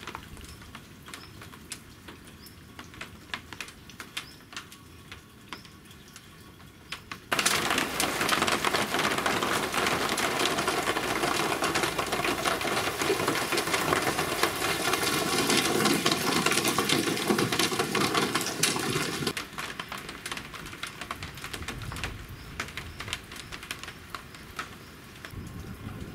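Rain from a thunderstorm: scattered drops ticking on surfaces, then a heavy downpour starting suddenly about seven seconds in and easing back to lighter dripping patter about seven seconds before the end.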